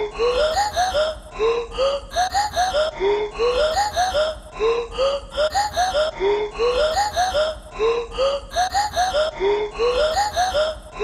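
Outro music: a looping electronic track of short, rising, voice-like notes over a steady low pulse, the same phrase repeating about every one and a half seconds.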